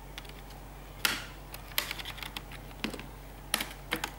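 Plastic clicks and snaps from an Asus Eee PC Seashell netbook keyboard as it is pried up out of its retaining clips with a small tool. There is a sharp snap about a second in, then scattered smaller clicks and rattles of the keys and plastic.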